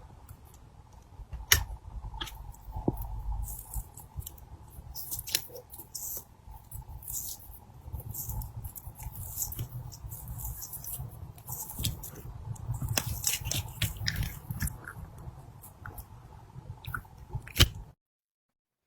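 Slime being squished and worked by hand: sticky squishing and crackling with many sharp clicks, the loudest near the start and near the end. It cuts off suddenly to silence just before the end.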